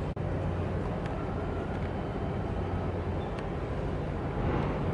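Steady low outdoor rumble with a hum, like distant engines and harbour noise, broken by a split-second dropout just after the start.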